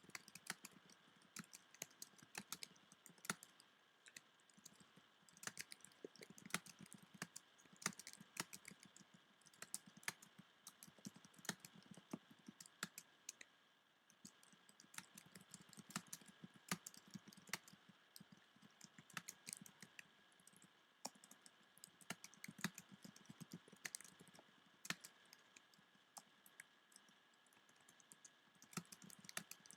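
Typing on a computer keyboard: quiet, irregular runs of key clicks with short pauses between bursts.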